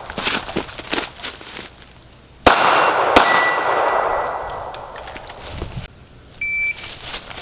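A single shot from a 9mm SIG P320 pistol about two and a half seconds in, with a steel target clanging and ringing as it is hit, the ring fading over about two seconds. Light clicks before it and a short high steady tone near the end.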